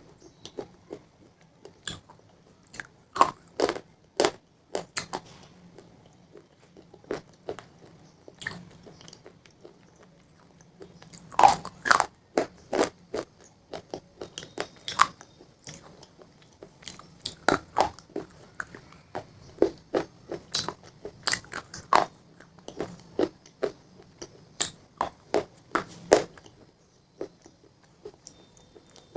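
A person biting into and chewing crunchy pizza: irregular crisp crunches in clusters, with short pauses between bites.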